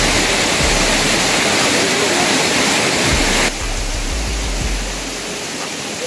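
Waterfall pouring onto rocks close by, a steady loud rush of water that drops a little in level about halfway through.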